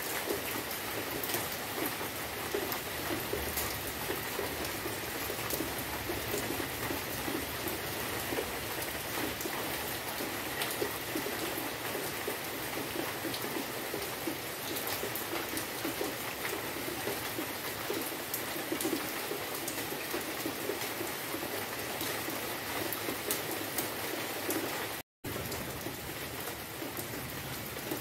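Steady rain falling on tree leaves, an even hiss with many single drops heard on top. It breaks off for a split second near the end and then goes on.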